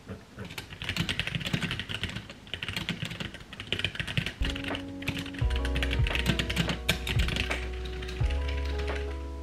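Rapid typing on a backlit computer keyboard, a quick patter of key clicks. Soft background music with held notes and a low bass comes in about halfway.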